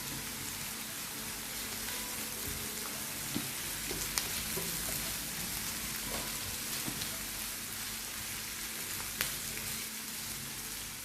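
Onions, green chillies and curry leaves sautéing in hot oil in a pan: a steady sizzle, with a few light clicks along the way.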